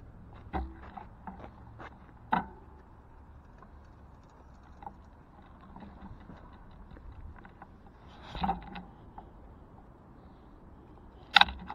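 Bicycle rattling as it rides over rough ground: a low steady rumble of rolling with scattered small ticks and a few sharp clunks, the loudest near the end.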